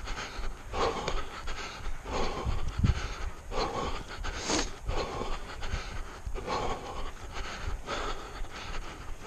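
A runner's heavy, rhythmic panting, close to a head-mounted camera microphone, about one breath every two-thirds of a second.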